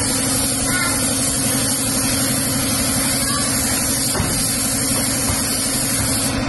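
Gravity-feed paint spray gun hissing steadily as it sprays the red colour coat onto a car bumper, with a steady low hum underneath.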